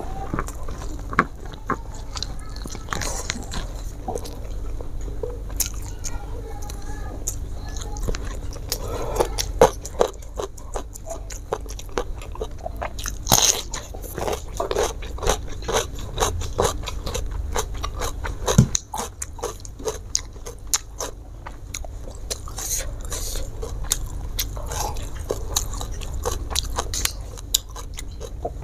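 A person eating: chewing and biting crunchy food, a dense, irregular run of short crisp clicks and crunches.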